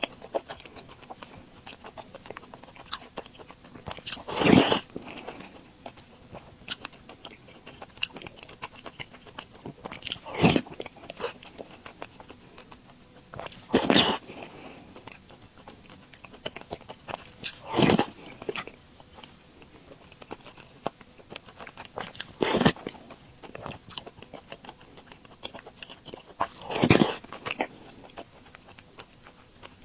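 Close-miked eating of sweet glutinous rice balls (tangyuan) in soup: soft chewing and mouth clicks, with a louder, short mouthful sound about every four seconds, six in all.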